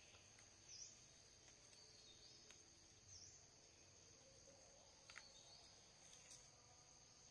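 Faint, steady high-pitched insect chorus, with a short high chirp repeating about every two and a half seconds and a few faint clicks.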